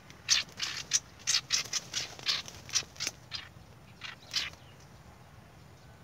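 Red-whiskered bulbul caught in a noose snare giving harsh distress calls: a quick run of about a dozen short calls over the first three seconds, then two more about a second later.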